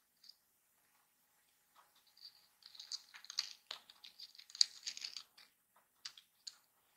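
Soft rustling and small crisp clicks of cardstock paper parts being handled, as fingers fit a paper disc onto a paper gear's square shaft and press its folded tabs. A quiet first couple of seconds, then a busy run of clicks and rustles, with a couple of single ticks near the end.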